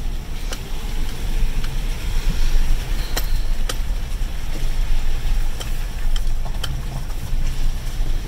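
Vehicle cabin noise while driving slowly over a rough gravel road: a steady low rumble of engine and tyres, with scattered sharp clicks and knocks from the bumps.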